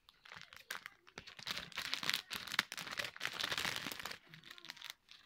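Plastic bag of polystyrene balls crinkling as it is handled and cut open with scissors, with many small rustles and clicks, busiest from about a second in until near the end.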